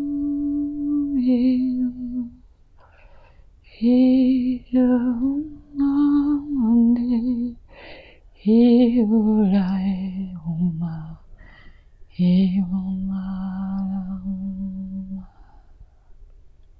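A single voice vocal toning without words, in the manner of light-language channeling. It holds a steady note, then after a short pause chants a run of short wordless syllables with wavering, stepping pitch, and finally holds one long lower note that stops about fifteen seconds in.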